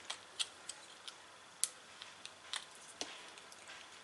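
Faint, irregular clicks and taps of plastic being worked by fingers as the back cover of a small digital FM transmitter is prised off by hand.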